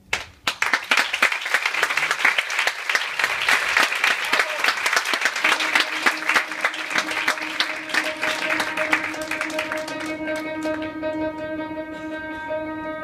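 Audience applauding: a dense clatter of clapping that starts suddenly and dies away over about ten seconds. About halfway through, music fades in under it, steady sustained pitched notes that carry on as the clapping ends.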